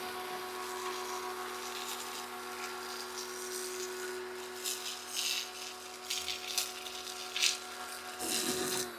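Pressure washer running with a steady whine, driving a foam cannon, with short bursts of hissing spray. Near the end the whine drops in pitch.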